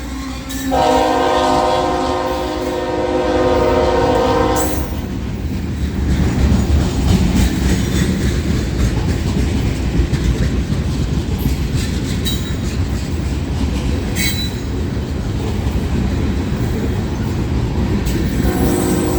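CSX freight locomotive's air horn blows a long chord, then the train runs past close by: a loud low rumble with clicks from the wheels of the freight cars. The horn sounds again near the end.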